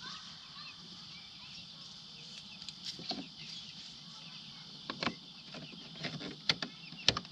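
Plastic door trim parts being fitted back onto a car door: a few sharp clicks and knocks, the loudest near the end, over a faint steady high-pitched background.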